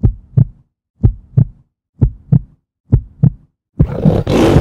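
Intro sound effect: a heartbeat of low double thumps, four beats about a second apart, then a loud rushing swell near the end as the treasure chest is opened.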